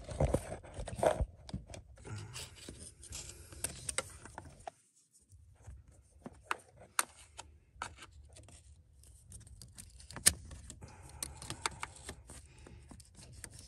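Pliers clicking and scraping on the plastic insulator of a glow plug connector as it is broken away to expose the wire, with scattered sharp clicks and handling noise. There is a brief silent gap about five seconds in.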